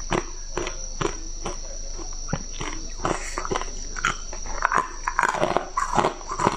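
Ice cubes crunched between the teeth close to a lapel microphone: steady chewing crunches about two a second, then a denser run of crackling crunches after a fresh piece goes in, about four seconds in.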